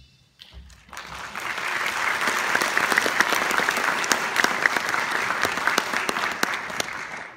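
Theatre audience clapping, starting about a second in and stopping just before the end.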